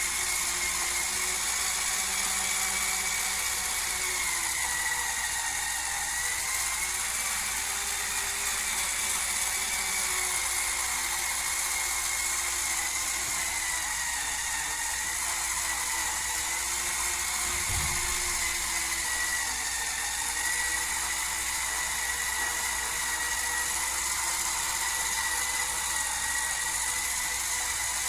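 Hurricane Spin Scrubber's small battery motor and spinning brush head running steadily with a high whine, its pitch wavering slightly. There is a brief low thump partway through.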